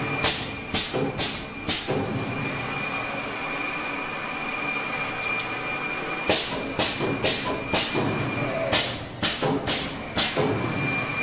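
Pneumatic pleating machine for glass-fibre HEPA filter paper cycling: short, sharp hisses of released air in quick runs, four in about two seconds, then a pause, then about eight more. A steady hiss and a thin high whine run underneath.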